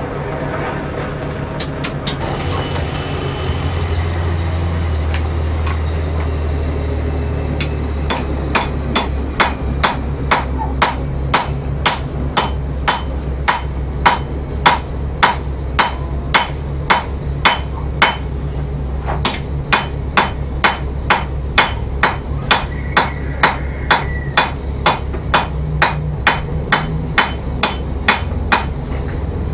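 Hand hammer striking hot rebar on an anvil, steady blows about two a second, drawing the round bar out into square stock. A steady low hum runs underneath.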